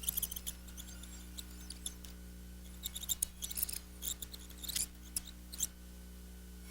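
Irregular small clicks and crackles, clustered at the start and again a few seconds in, over a steady low hum.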